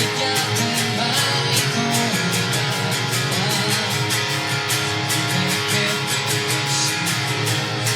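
Guitar-led rock music: guitar playing over a bass line and a steady, even beat.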